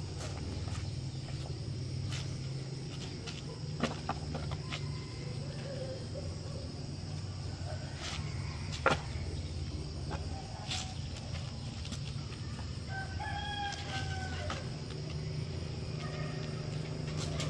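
Loose wooden boards knocking and clattering as they are handled and set down, the sharpest knock about nine seconds in. A rooster crows once, a call of about a second and a half, starting about two thirds of the way through, over a steady low hum.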